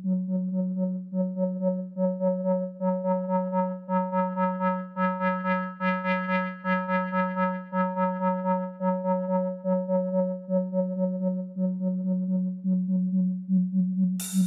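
Breakdown in a techno DJ set: a single sustained synthesizer note with the drums gone, pulsing about twice a second. It grows brighter toward the middle and dulls again. Right at the end the full beat drops back in.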